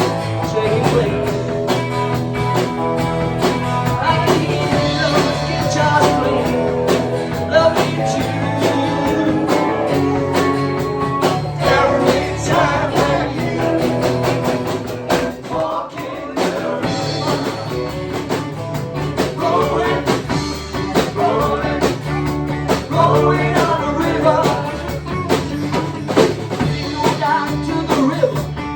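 Live band playing a rock song, with electric guitar prominent and some singing.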